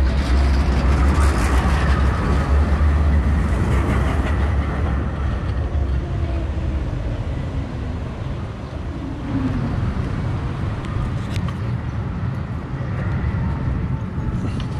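Low vehicle rumble over urban background noise. It is loudest for the first four or five seconds, then eases to a quieter, steady background.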